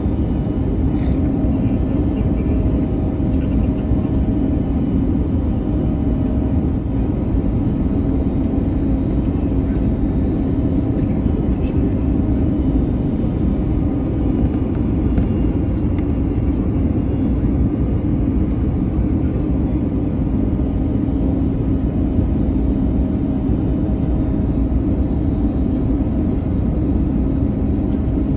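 Steady cabin roar of an Airbus A321neo on final approach, heard inside the cabin at a window seat over the wing: airflow and its CFM LEAP-1A turbofan engines, with a steady low hum running underneath.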